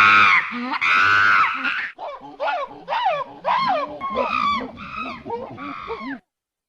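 A monkey calling: two long, harsh calls, then a quick run of shorter calls that swoop up and down in pitch, cutting off suddenly about six seconds in.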